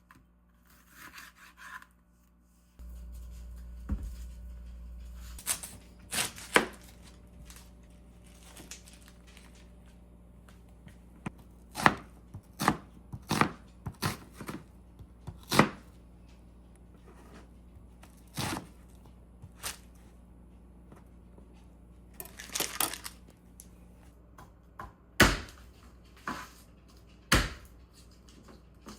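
Kitchen knife chopping food on a cutting board: single sharp knocks at uneven intervals, with a short quick run of cuts near the middle.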